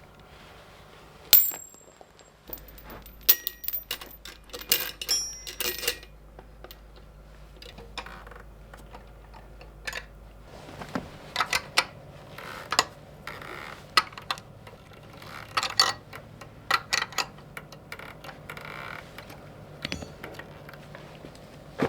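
Irregular sharp metal-on-metal clinks and knocks at a steel anvil and its mounting hardware. The loudest comes about a second in, and several between about three and six seconds in ring on with a bright high tone. Further knocks follow with less ring.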